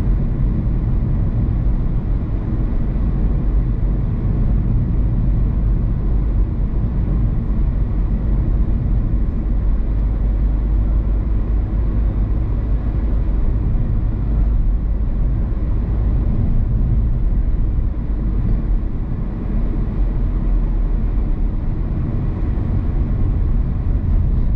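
A car being driven along a road: a steady low rumble of tyres and engine that holds an even level throughout.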